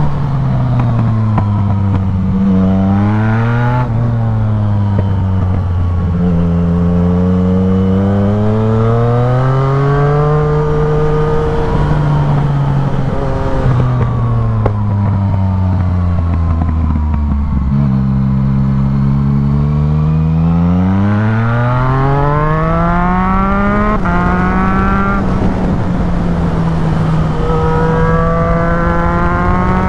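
Yamaha MT-09's inline three-cylinder engine with a full aftermarket exhaust, revving up and down as the bike accelerates and slows, its pitch climbing and falling several times with quick gear changes between, over steady wind noise.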